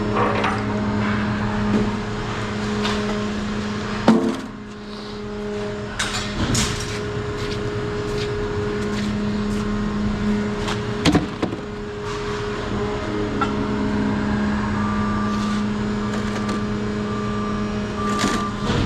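Vehicle engine idling steadily, with a few sharp knocks and bangs along the way and a brief on-off beeping near the end.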